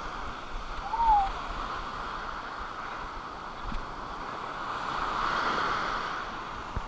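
Ocean surf breaking and washing up the beach, swelling about five seconds in and then fading. A brief short chirp sounds about a second in.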